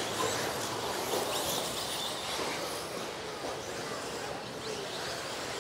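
Electric RC off-road buggies racing on a dirt track: a steady hiss of motors and tyres with faint rising and falling whines, easing slightly as the pack pulls away.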